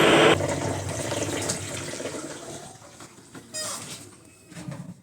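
Brastemp Ative 11 kg washing machine: its loud spin noise cuts off abruptly just after the start, then a watery whooshing fades away as the drum winds down. The owners take the noise for a fault in the machine's transmission (gearbox).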